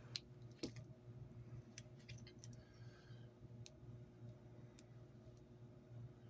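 Near silence with faint, scattered small clicks, light handling of tools and cord, over a low steady hum.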